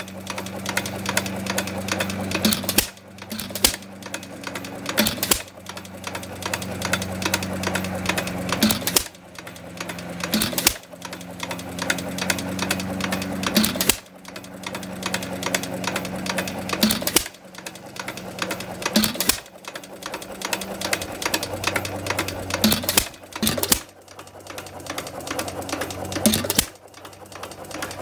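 Associated Chore Boy 2¼ hp hit-and-miss engine running: a sharp firing bang comes every few seconds at uneven spacing, and between firings the engine coasts with a fast, steady mechanical clatter.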